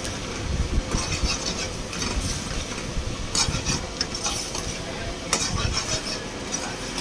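A spoon stirring and scraping in a pan of frying prawns, with sizzling and a few sharper scrapes or clinks against the metal.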